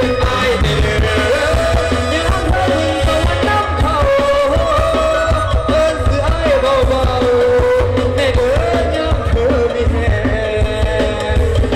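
Live Thai stage-show band music played loud through the PA: a wavering, bending melody line over a steady drum and bass beat.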